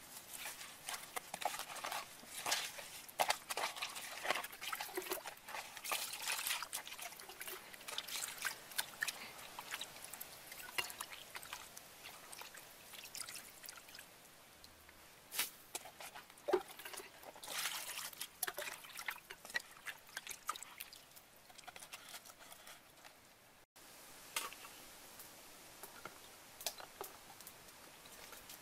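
Hands washing a gutted fish in a plastic basin of water: irregular splashing, sloshing and dripping as the pieces are rubbed and lifted. The splashing thins out toward the end, leaving a quieter stretch with a few light ticks.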